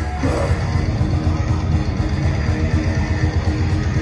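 Thrash metal band playing live through a loud PA, heard from within the crowd: distorted electric guitars, bass and fast, driving drums in a dense, continuous wall of sound.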